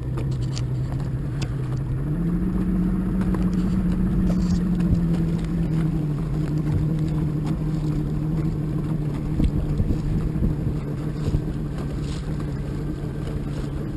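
Boat's outboard motor running under way. Its pitch rises about two seconds in as the throttle opens, then eases back a little and holds steady over the rush of water against the hull.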